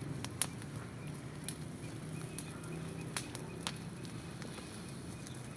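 Small bonfire crackling, with a handful of sharp irregular pops, as a plastic bag burns in it.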